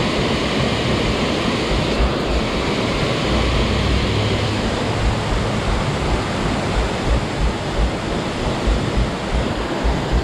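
Steady, loud rush of a waterfall, with wind buffeting the microphone in irregular low rumbles.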